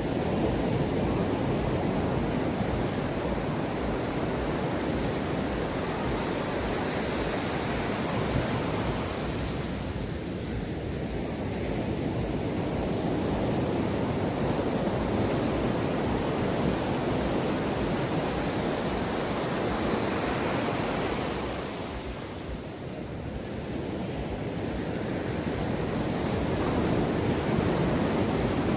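Sea waves breaking and washing up the shore in a continuous rush that swells and eases, with a short lull about two-thirds of the way through.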